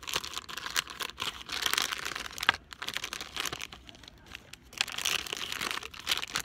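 Plastic blind-bag packaging crinkling and rustling as it is torn open and handled, in bursts of crackle with short pauses about two and a half and four seconds in.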